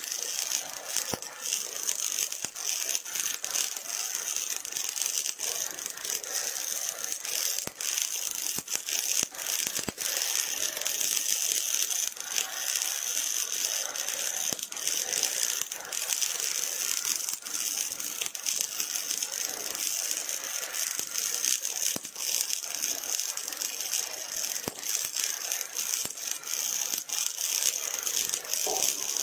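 Robotic MIG welding arc from an OTC welding robot on steel, giving a steady, dense crackling sizzle full of rapid small pops.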